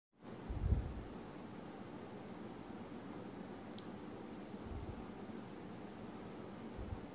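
A cricket chirping steadily: one high tone that pulses quickly and evenly. There are a few faint low thumps from fabric being handled.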